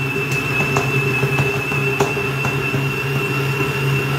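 Electric stand mixer running steadily while kneading a small batch of bread dough: a constant motor hum with a thin high whine and soft knocks about twice a second.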